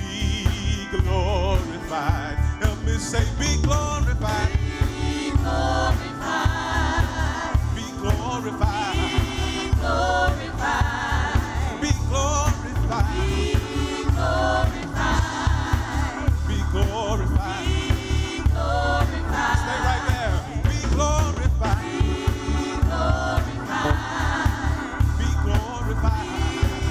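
Gospel praise-and-worship song: a choir of singers over a band with a strong bass line and a steady beat.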